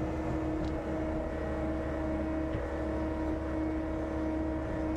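John Deere 325G compact track loader's diesel engine running at a steady pitch as it works the ground, with no revving.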